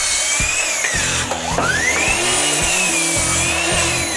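Metabo KGS18 LTX 216 cordless brushless miter saw whining as it spins down, then spinning up again and cutting through a 2x4, its pitch sagging under load and falling as it winds down near the end. Background music with a steady beat plays under it.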